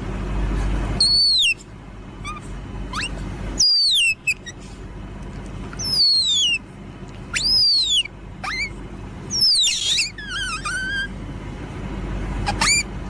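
A bird giving high, piercing whistled calls, each sweeping down in pitch, about five times, over a low steady rumble.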